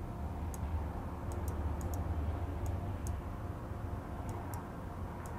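Several faint, irregularly spaced light clicks over a steady low hum.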